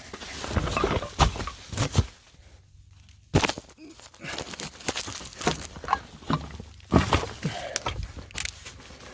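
A person crawling over plastic moisture-barrier sheeting: irregular rustling and scraping with scattered knocks. There is a pause of about a second near the middle, ended by a sharp knock.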